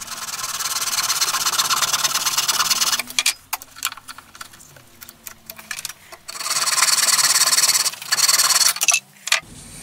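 Small hacksaw sawing into a turned cherry wood handle with quick back-and-forth strokes, in two spells: about three seconds of sawing, a pause with a few light knocks as the piece is handled, then sawing again for about two and a half seconds.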